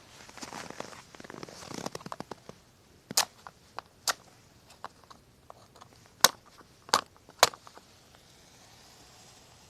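Dry wood crackling and snapping: a dense rustling crackle for the first two seconds or so, then five sharp, loud cracks spread over the next few seconds with small ticks between them.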